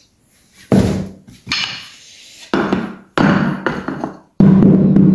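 Homemade drum made from a plastic bucket with a head of stretched tape, beaten with a stick: about seven irregular beats, each with a short low ringing tone. The loudest and longest beat comes near the end.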